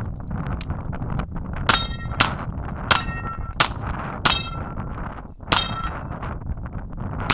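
A string of about seven pistol shots at a Texas Star steel target, the hits ringing off the steel plates as clangs that hang on briefly after each shot.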